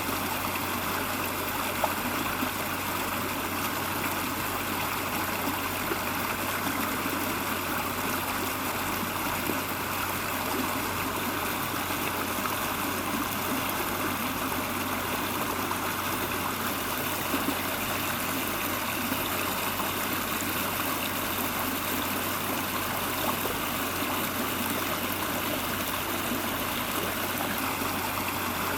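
Stream running steadily, an even rush of flowing water with a few faint clicks.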